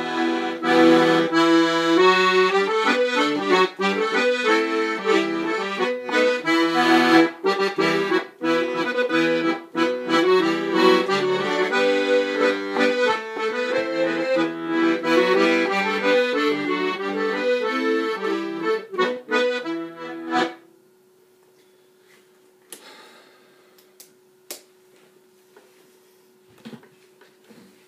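Brandoni button accordion played solo, a quick tune of changing melody notes over held bass and chords. It stops suddenly about twenty seconds in, followed by only a few faint clicks.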